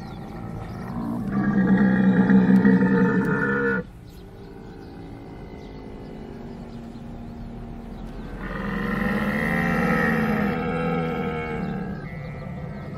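Camel calling in two long, pitched, bellowing calls. The first starts about a second in and cuts off abruptly about three seconds later. The second begins about halfway through and trails off near the end.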